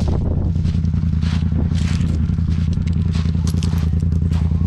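Side-by-side UTV engine running steadily in swamp mud, with irregular scraping and clattering noises over it.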